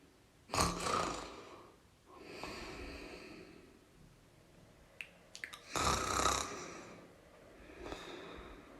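A person snoring: two loud snores, about half a second in and about six seconds in, each followed by a softer breath. A few short clicks come just before the second snore.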